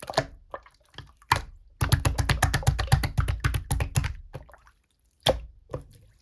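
Slime being played with by hand, making quick sticky clicks and pops: a dense run of rapid clicks for a couple of seconds, with single louder pops before and after it.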